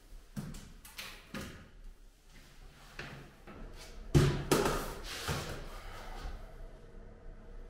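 Knocks and scrapes as a flanged steel-pipe time capsule is pushed into a brick niche, then a heavy thump about four seconds in, followed by a second, as a bucket of mortar is set down on the concrete floor, and then a trowel scraping in the mortar.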